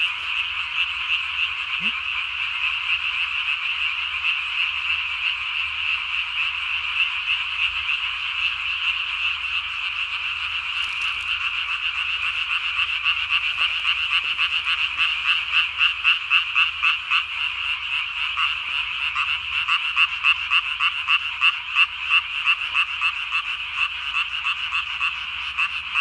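Dense night chorus of Japanese tree frogs calling, a continuous fast pulsing rattle of many overlapping calls. Past the middle the pulses grow more distinct and beat strongly in loudness.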